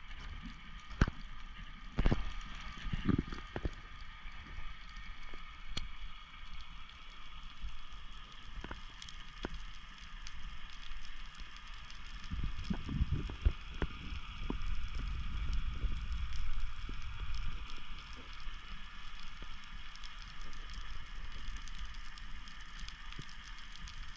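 Underwater ambience picked up by a submerged camera: a constant crackle of scattered sharp clicks over a steady hiss, with low rumbling water movement that swells about halfway through.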